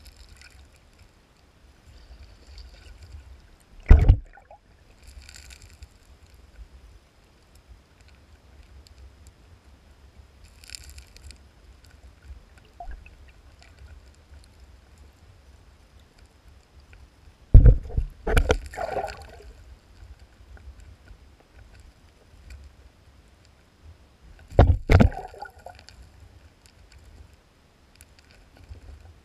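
Underwater stream noise from a sockeye salmon spawning bed: a low, steady rushing broken by a few loud thumps and knocks, with one about four seconds in, a quick cluster past the middle and a pair near the end. The knocks come as the spawning salmon thrash their tails over the gravel close to the microphone.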